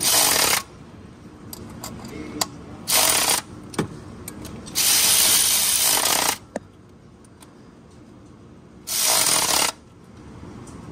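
Milwaukee cordless ratchet run in four bursts, the third one longest, running the new water pump's bolts down until they seat, before final torquing. Light clicks of the socket and ratchet fall between the runs.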